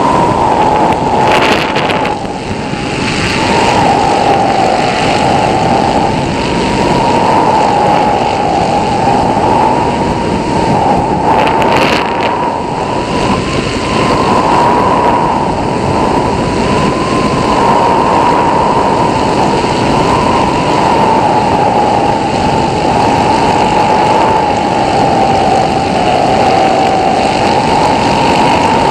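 Hang glider in flight: a steady loud rush of airflow over the glider and the wing-mounted microphone, with a thin whistling tone that wavers slowly up and down in pitch throughout.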